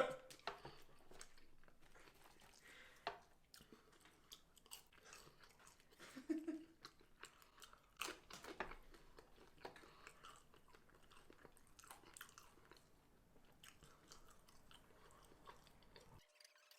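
Faint chewing and crunching from someone eating fried chicken tenders and fries close to the microphone: scattered soft crunches and mouth clicks, with a few slightly louder bites about six and eight seconds in.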